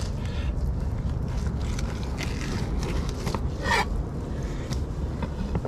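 A fillet knife scraping along a plastic cutting board as the skin is cut from a black-bellied rosefish fillet, with a short squeak a little under four seconds in, over a steady low rumble.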